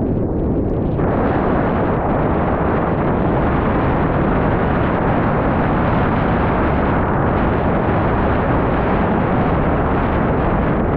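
Heavy wind buffeting the microphone during a fast descent of a snowy slope, mixed with the hiss of snow sliding underfoot. It is a steady, loud rush that grows brighter about a second in.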